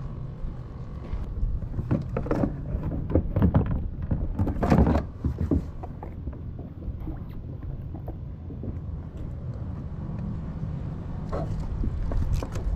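Low wind rumble on the microphone, broken by scattered knocks and rustles as fishing gear and a landing net are handled in a kayak; the loudest knock comes about five seconds in.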